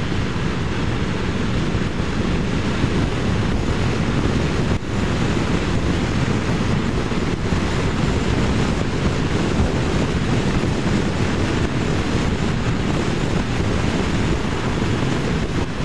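Steady rush of wind on the microphone of a Vespa scooter riding at speed, with the scooter's running noise beneath.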